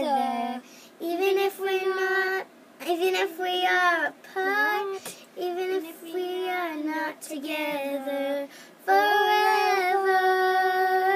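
Children singing a song with no accompaniment, in short phrases of held and gliding notes with brief pauses between them.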